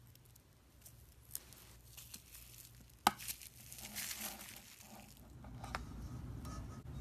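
Scissors cutting a slime-filled balloon stress ball: faint snips, then one sharp snip about three seconds in, followed by crinkling and squishing as the slime is squeezed out. A low rumble rises near the end.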